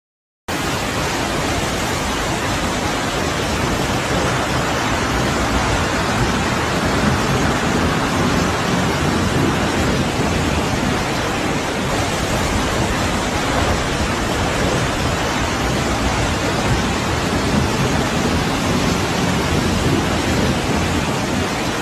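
Heavy rain pouring down over rushing floodwater: a steady, dense noise that cuts in abruptly just after the start and holds level throughout.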